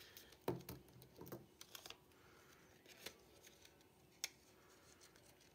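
Near silence, broken by a few soft clicks and rustles; the sharpest click comes about half a second in.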